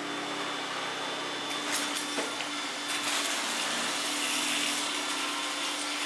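iRobot Roomba S9+ robot vacuum running steadily as it cleans: a constant hum under a hiss of suction, with a light knock about two seconds in.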